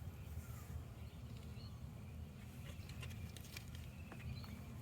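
Quiet outdoor background: a steady low rumble with scattered faint ticks and a few faint, brief bird chirps.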